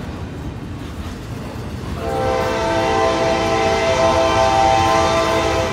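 Steady rumble of a double-stack intermodal freight train rolling through a grade crossing; about two seconds in, a locomotive air horn sounds one long multi-note chord and holds it.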